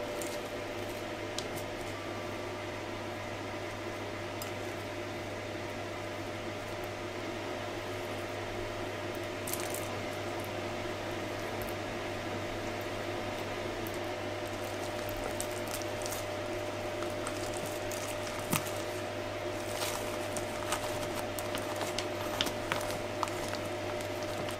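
Soft rustles, squishes and small taps of food being handled: shredded red cabbage and chicken laid onto wet rice paper, then the salad wrap rolled up. The handling sounds come more often in the second half, over a steady low electrical hum.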